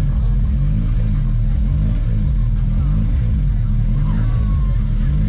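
Honda Civic four-cylinder engine running just after a head gasket replacement, its pitch rising and falling over and over as the idle is still settling.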